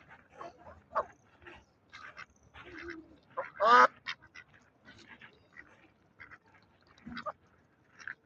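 A string of short animal calls, one after another, the loudest a longer pitched call that bends in pitch about three and a half seconds in.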